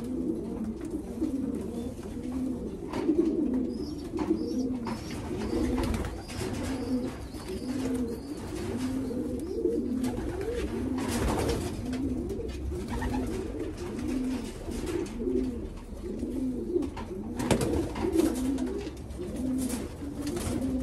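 Several racing pigeons cooing together, a steady overlapping run of low rising-and-falling coos about once a second.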